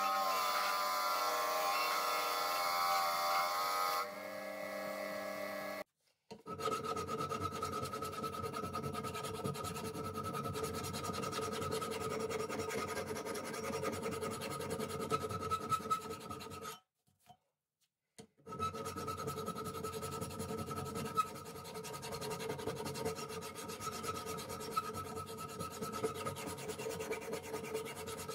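A bench grinder motor humming for the first few seconds. Then a hand file scrapes in steady strokes across a steel screwdriver blade clamped in a vise, with a short pause partway through.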